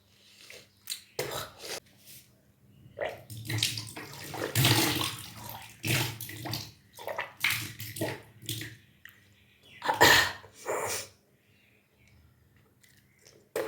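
A person retching and bringing up the water they drank in a series of irregular gushes that splash down, the loudest about ten seconds in: the vomiting stage of kunjal kriya, the yogic stomach cleanse.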